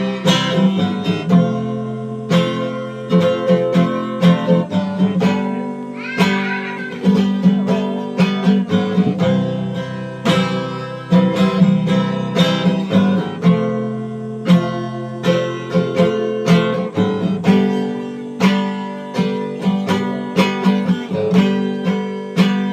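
Instrumental music on a plucked string instrument: picked notes and strummed chords in a steady rhythm, each note sharply struck and ringing on.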